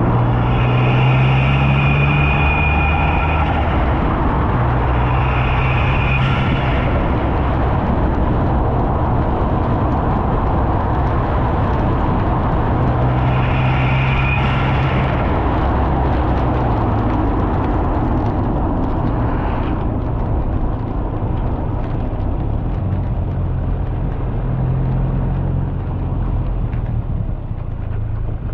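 Ford Fiesta ST180's turbocharged 1.6-litre four-cylinder engine, fitted with a hybrid turbo, running continuously. It comes on load several times, about four spells in all, and a high whistle rises over the engine note in the first few.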